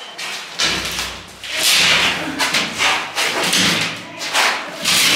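Thuds and rough scraping from a large OSB chipboard panel being handled and shifted against a wall, in repeated bursts of about half a second each from under two seconds in.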